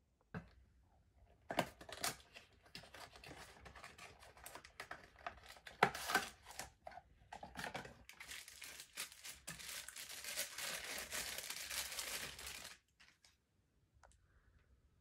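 Clear plastic blister packaging and card crinkling and crackling as they are handled, with a few sharp clicks at first. The crackling builds and runs for several seconds, then cuts off suddenly near the end.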